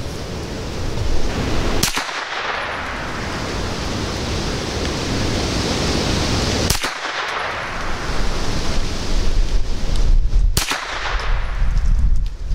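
Three gunshots from a 9mm Hi-Point 995TS blowback carbine, fired a few seconds apart.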